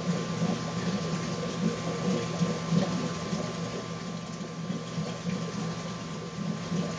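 Steady hum of a reef aquarium's pumps with the hiss of circulating water.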